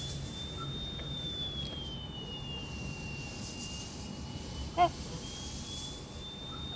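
A domestic goose gives one short honk about five seconds in. Underneath runs a steady low rumble, with a faint high tone that slowly rises and falls.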